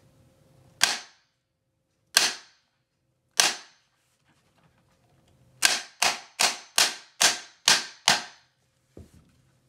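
Steel hammer striking the metal seat mechanism of an office chair beside the gas cylinder's socket, to knock the stuck cylinder loose. Three single sharp knocks about a second apart, then seven quicker knocks in a row, each with a short ring. The cylinder is tight in its socket and does not come free.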